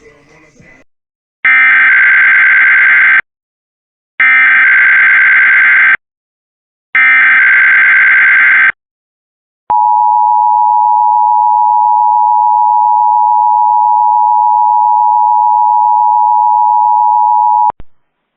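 Emergency Alert System required monthly test: three identical bursts of SAME header data tones, each just under two seconds, and then the EAS two-tone attention signal, a steady dual tone held for about eight seconds before it cuts off suddenly.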